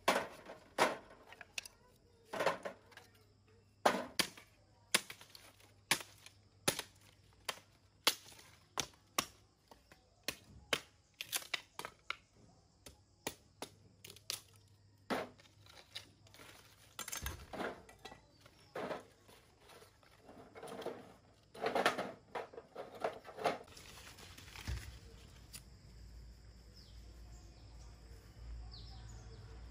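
An irregular series of sharp knocks and clicks, roughly one or two a second, that thin out after about twenty-four seconds, leaving a low steady hum.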